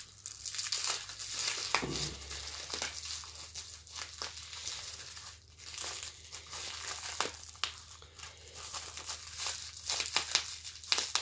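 Clear plastic packaging crinkling and rustling as it is handled and pulled open, with many small irregular crackles.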